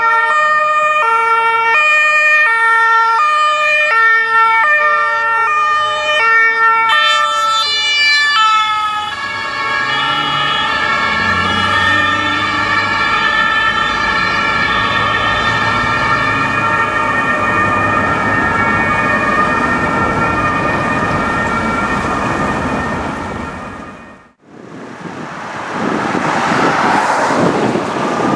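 German police two-tone sirens (Martinshorn). One switches between its two notes about every half second; from about seven seconds in a second siren joins, and the two overlap into a dense, steady mix of tones as the vans pass. After a sudden break near the end, a police van's engine and tyre noise on the road.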